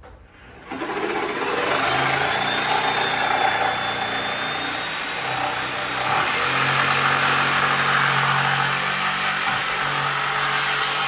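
A motor-driven machine starts about a second in and runs steadily, a loud rushing noise over a low hum and a faint high whine.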